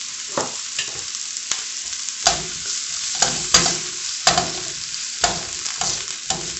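Diced onion, red pepper and broccoli sizzling in oil in a nonstick skillet while a spatula stirs them. The spatula scrapes and knocks against the pan several times, loudest in the middle.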